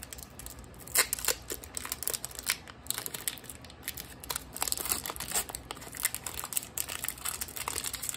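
Foil wrapper of a Pokémon card booster pack being torn open and crinkled by hand: irregular crackling rustles throughout, loudest about a second in.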